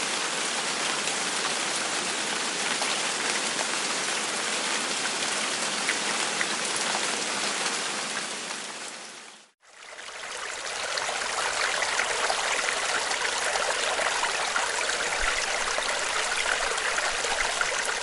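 Steady hiss of falling rain, a rain sound effect. It fades away about halfway through, then fades straight back in.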